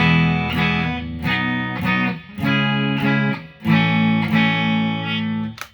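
Electravox Jazzmaster electric guitar strumming a run of chords, each left to ring before the next change, with the pickup selector in position 3 of its six-way switch. The guitar's pickups are GFS wide-range humbuckers in the neck and bridge and a GFS Dream-90 P90 in the middle. A short muted pick click comes near the end.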